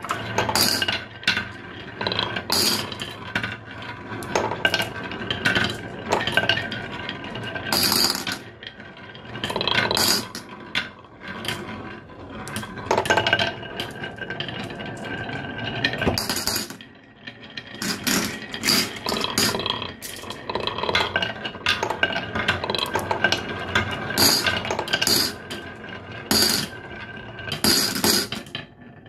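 Glass marbles rolling down a carved wooden zigzag slope, with a steady stream of clicks and clinks as they strike the wooden groove walls and each other.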